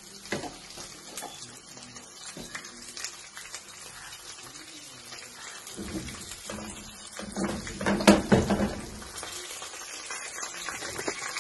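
Semolina-coated fish pieces shallow-frying in oil in a pan, a steady sizzle with small spattering crackles. From about six seconds in, louder knocks and rustling as the pan is gripped by its handle, with the loudest knock about eight seconds in.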